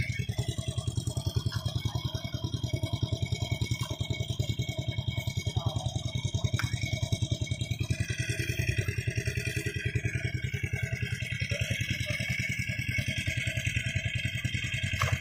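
A small engine running steadily at a constant speed, with a rapid, even pulsing beat.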